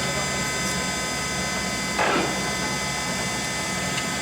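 A LeBlond 4025NK heavy-duty lathe running, a steady machine hum and whine of its gearing. About halfway through there is a single short clunk as the lead screw feed is shifted into reverse.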